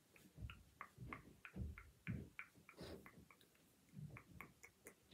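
Makeup brush dabbing and stroking against the phone right by its microphone: faint soft taps, about three or four a second.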